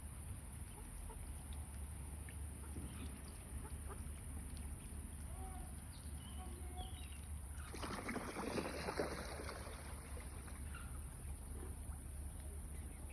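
Faint, scattered soft calls from a mother duck and her ducklings, with a louder rush of noise lasting about two seconds a little past the middle.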